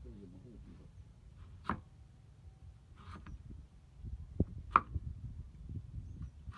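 Kitchen knife slicing through food and tapping down on a thick wooden chopping block: a few sharp, separate taps a second or more apart, the loudest about three-quarters of the way through.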